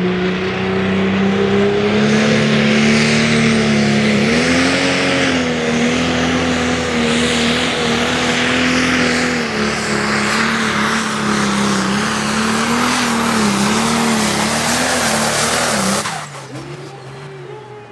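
Turbocharged diesel engine of a green John Deere Pro Stock pulling tractor at full throttle, dragging the weight-transfer sled down the track. Its note rises about four seconds in and then wavers up and down as the load builds, over a high turbo and exhaust hiss. It stops abruptly near the end.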